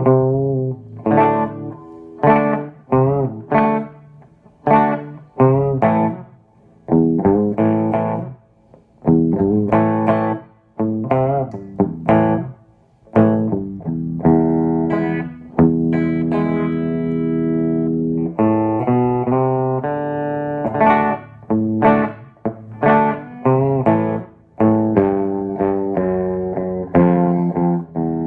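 Electric guitar with a Seymour Duncan JB humbucker played through a JTM50 tube amp build, freely noodling. It plays short, choppy chords and riffs with brief gaps, lets chords ring out from about halfway in, then returns to clipped riffing near the end.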